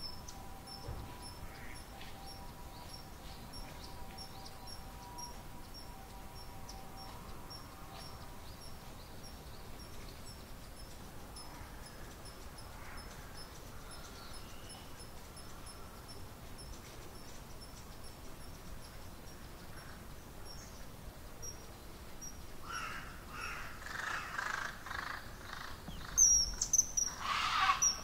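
Common kingfishers calling: a short, high call repeated about twice a second throughout. Over the last five seconds a crow caws a run of calls, and near the end the kingfishers answer with louder, sharper calls, reacting to the crow.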